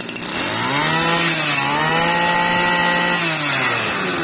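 Tanaka 23cc two-stroke brush cutter engine revved from idle, held at high revs for a couple of seconds, then let back down. It picks up quickly and runs strongly, showing a responsive, healthy engine.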